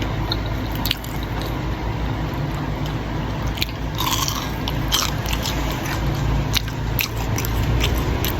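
Close-miked mouth sounds of someone biting and chewing chocolate-glazed banana, with scattered short wet clicks and smacks over a steady low hum.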